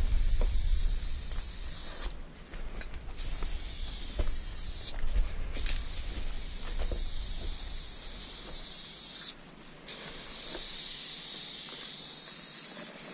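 Aerosol spray paint can hissing in long strokes, with short breaks about two, five and nine seconds in.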